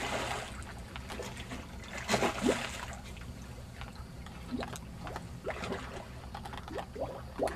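Water splashing and trickling at a boat's side as a hooked fish is brought in to the surface on a line, with the loudest splashes about two seconds in. A steady low hum runs underneath.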